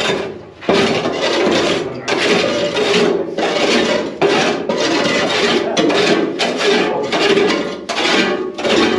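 A brush sweeping dirt and debris along the floor, with rasping strokes one after another, roughly one or two a second.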